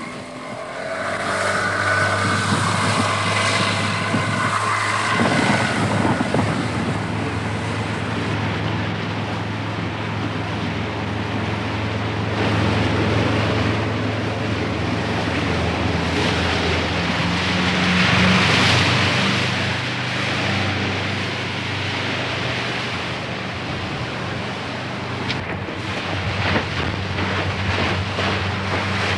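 Motorboat engine running steadily as it tows a water-skier, with the rush of water and spray. A higher engine whine rises and wavers over the first few seconds as the boat pulls away.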